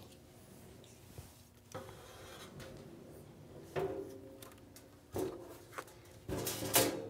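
Handling noise as an electroacupuncture unit and its lead wires are picked up and moved about on a stainless-steel cart tray: a few separate knocks and scrapes, with the loudest cluster near the end.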